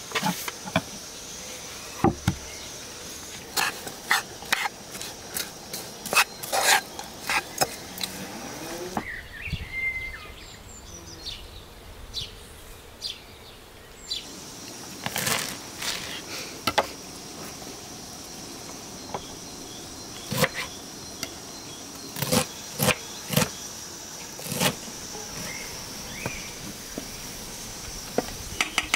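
Sharp wooden taps and knocks of kitchen work, including a knife chopping greens on a wooden cutting board in quick clusters near the end. Under them runs a steady high chirring of insects, which drops out for a few seconds in the middle.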